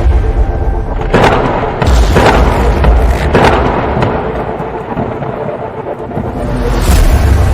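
Thunder: a deep rumble, then four sharp cracks over about two and a half seconds, and the rumble builds again near the end.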